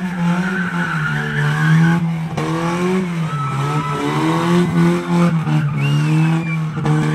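Rally car's engine held at high revs, rising and falling, as the car power-slides with its tyres squealing and smoking. There are squeals about a second in, around four seconds in and near six seconds in.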